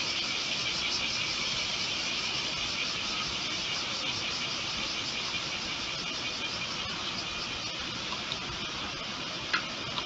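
Steady, even hiss with no change in level throughout, and a couple of short clicks near the end.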